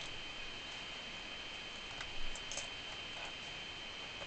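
Sharp scissors snipping through a leather strap end, a few small clicks about two seconds in, over a faint steady hiss.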